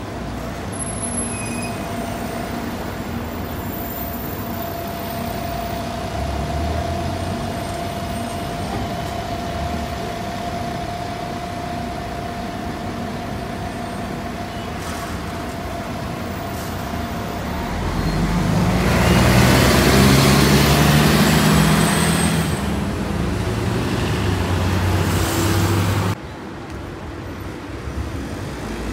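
Street traffic with a city bus close by. About two-thirds of the way in, the bus gets much louder, with a low engine hum and a hiss, then the sound drops off abruptly.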